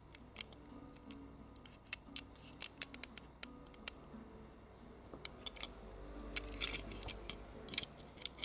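Light irregular clicks and taps of fingers handling a small die-cast metal toy car and turning it over in the hand, the clicks coming more thickly from about five seconds in.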